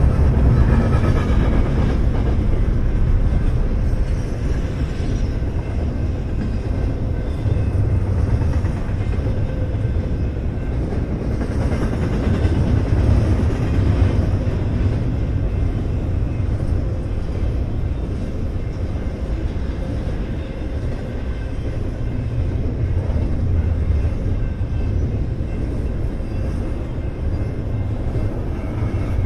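Double-stack intermodal freight train passing, a steady loud rumble of the cars' wheels on the rails.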